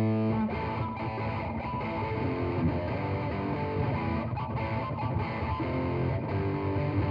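Electric guitar playing a lead passage through an overdrive pedal stacked into a distortion pedal, giving a heavily distorted tone that the overdrive only slightly boosts.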